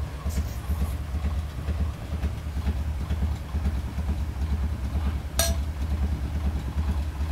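A steady low rumble runs throughout, with one sharp clink about five seconds in as a steel spoon is dropped back against the aluminium pot of momo filling.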